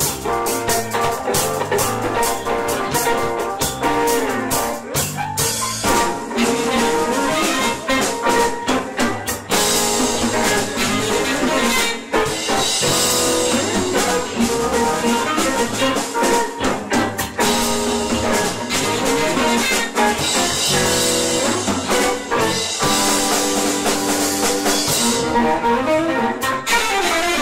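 Live band playing an instrumental passage: drum kit, electric guitars, saxophone and keyboard.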